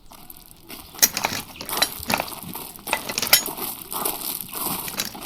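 Dense, irregular clattering with clinks and knocks over a rustling noise, with a faint steady hum underneath.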